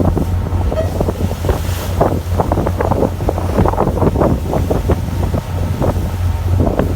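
A fishing boat's engine running with a steady low hum under wind on the microphone, while water splashes and knocks come irregularly, several a second.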